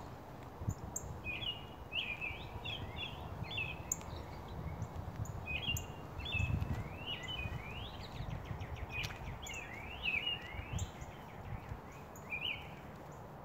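Small songbirds chirping, with quick series of short chirps and rising whistled notes, over a low steady rumble.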